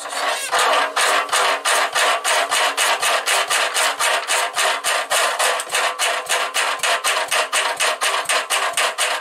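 Petter PAZ1 single-cylinder diesel being hand-cranked with its starting handle: a fast, even mechanical clatter of about four or five strokes a second. It turns over and smokes but does not fire, which the owner puts partly down to badly worn rocker gear.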